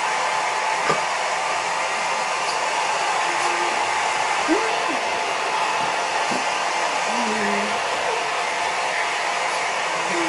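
Handheld hair dryer blowing steadily, drying a dog's fur.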